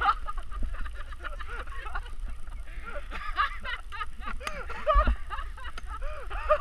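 People laughing and calling out, with wind rumbling on the microphone.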